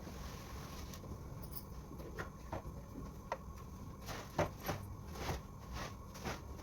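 Scattered light taps and knocks of household things being handled and moved about, sparse at first and coming more often from about four seconds in.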